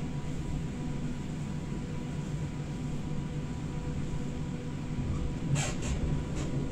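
Passenger train running slowly, heard from inside the carriage as a steady low rumble, with a couple of brief noises about five and a half seconds in.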